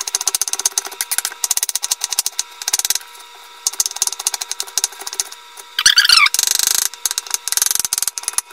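Chef's knife rapidly chopping an onion on a wooden cutting board: a fast run of sharp knife taps on the wood, pausing briefly about three seconds in, with a short scraping noise a little after six seconds.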